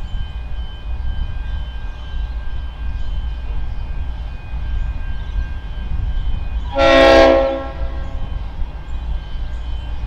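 An approaching diesel locomotive sounds its horn: one blast about a second long, roughly two-thirds of the way through, over a steady low rumble.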